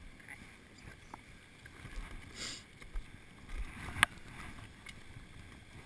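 Rustling and handling noise of clothing and climbing gear, with scattered small clicks and one sharp click about four seconds in.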